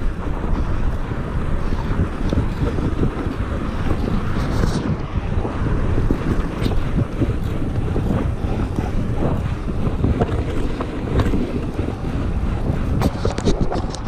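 Wind buffeting the microphone of a camera on a bicycle ridden at speed: a steady, fluttering low rumble, with a few sharp clicks near the end.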